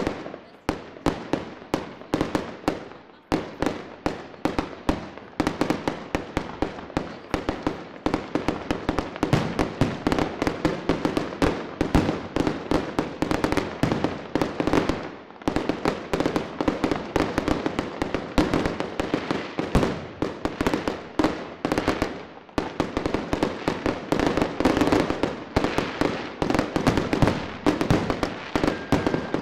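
Aerial fireworks display: a dense, continuous barrage of shell bursts, several sharp bangs a second, with the reports overlapping and echoing.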